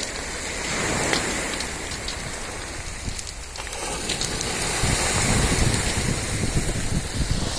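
Sea waves washing onto the shore, swelling about a second in and again more strongly from midway, with wind on the microphone.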